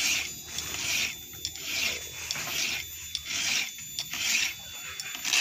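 Round file scraping across the cutter teeth of a Stihl 070 chainsaw chain: hand sharpening, about seven even rasping strokes.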